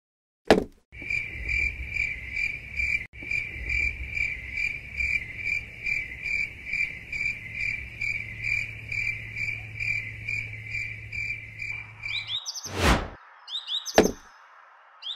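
An insect, cricket-like, chirps steadily at about two and a half pulses a second, then stops just after twelve seconds in. A sudden knock follows, with a few quick high chirps near the end.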